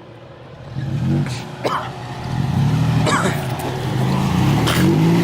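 Off-road 4x4's engine revving under load as it crawls over a rock, starting about a second in and rising and falling with the throttle. A few sharp knocks are heard over it.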